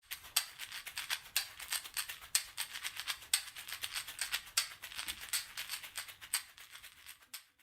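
A dry, rattling shake, with a stronger accent about once a second.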